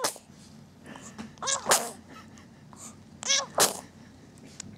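Two sneezes about two seconds apart, each a short high-pitched catch of breath ending in a sharp burst.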